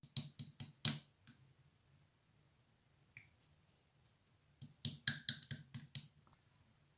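Clear slime with gold pearl glitter being pressed and worked by hand, making crisp clicking pops. There are two runs of about four clicks a second: about five at the start and about seven a little after the middle.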